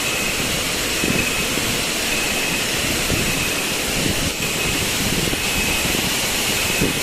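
Waterfall pouring: a steady, loud rush of falling water with no let-up, with a faint high tone coming and going above it.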